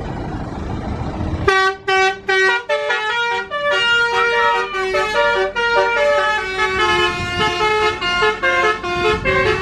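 A tour bus's telolet horn plays a multi-note melody that starts suddenly about a second and a half in, after a low rumble of the bus engine and traffic.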